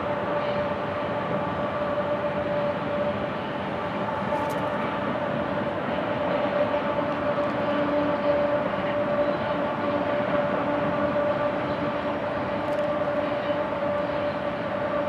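Loaded coal train rolling along the track, steel wheels on rail, with a GE ES44AC distributed-power diesel locomotive working among the cars. The locomotive's engine adds a steady whine over the rolling noise.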